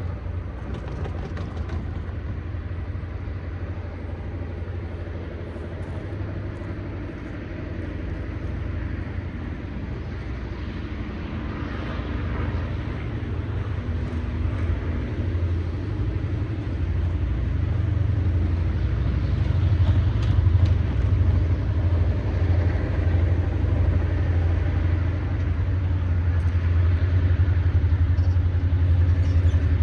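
Diesel locomotive engine running low and steady, growing louder as the freight train pulls closer.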